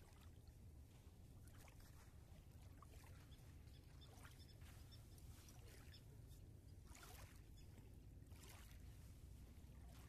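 Faint lapping of small waves at the shore of a calm river, soft splashes at irregular intervals over a low steady rumble.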